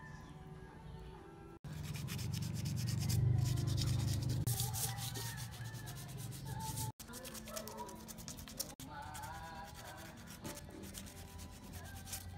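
A hand rubbing and sanding the surface of a cement statue in quick, rasping strokes, loudest in the first half, broken off by abrupt cuts.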